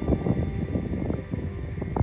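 Wind rumbling and buffeting on the microphone, an uneven low rumble with short irregular gusts.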